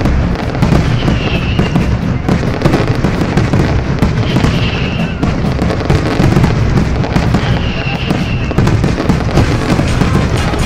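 Large football stadium crowd celebrating a title win: loud, continuous cheering with dense crackling throughout.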